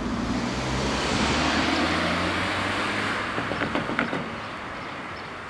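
A car driving through a railway level crossing: steady tyre and engine noise that swells in the first couple of seconds and then fades, with a few sharp clicks about three and a half to four seconds in.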